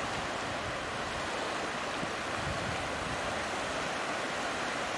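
Steady rush of surf, small waves washing through shallow sea water.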